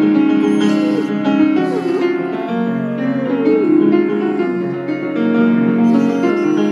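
Piano chords being played while a Great Pyrenees howls along, its howls sliding down in pitch three times in the first few seconds.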